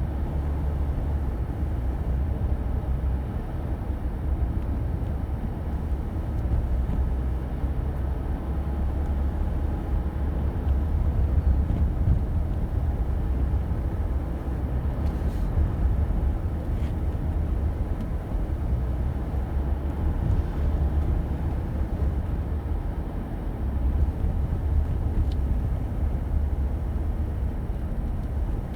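A car driving along a forest road, recorded from the car itself: a steady low rumble of engine and tyres, with a couple of faint knocks about halfway through.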